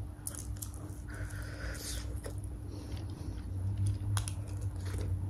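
A person chewing food close to the microphone, with scattered small mouth clicks over a steady low hum.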